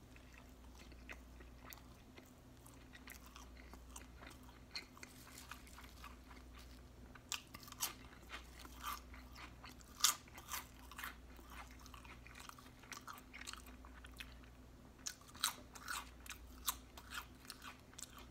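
Close-miked chewing of a barbecue pulled-pork sandwich and chips: wet mouth sounds with sharp crunches and clicks that come in clusters, a few of them about a third of the way in, a loud one around the middle, and a busy run past three-quarters.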